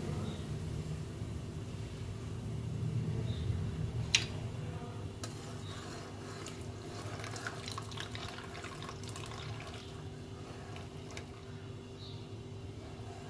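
Diluted white vinegar poured slowly from a glass cup into a steel pot of hot milk, with a metal spoon clinking and stirring: the acid being added to curdle the milk. One sharp clink comes about four seconds in, then a run of small clinks and splashes, over a steady low hum.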